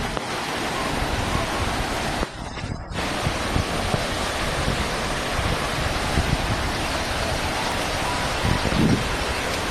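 Steady rushing noise of floodwater, with a brief dip about two and a half seconds in.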